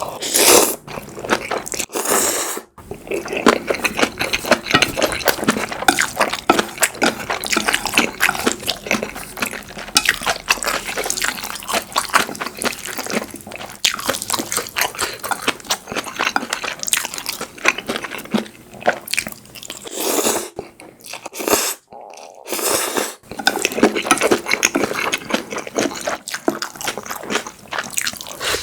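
Close-miked eating sounds: wet chewing, smacking and crunching, a dense run of irregular clicks with a couple of short pauses.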